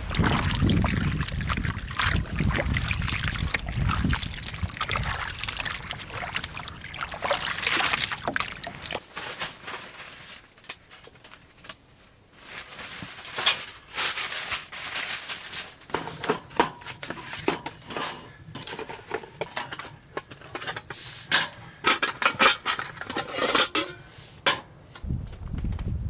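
Water pouring and sloshing for the first several seconds, then a run of sharp clinks and knocks of metal cookware.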